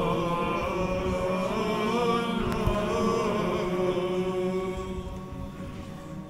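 A group of male chanters singing Byzantine chant, the melody moving between held notes over a steady low drone (the ison). The singing eases off near the end.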